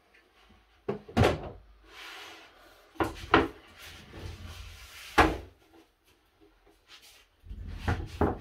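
A large wooden baseboard being lifted, turned over and laid back on a workbench: sharp wooden knocks about a second in, at about three seconds and around five seconds, with scraping and rubbing between them as the board slides over the boards beneath, and more knocking near the end.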